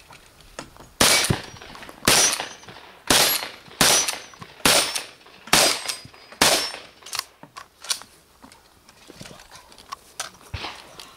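Benelli Supernova Tactical pump-action shotgun fired seven times in quick succession, about a second apart, followed by a few lighter knocks.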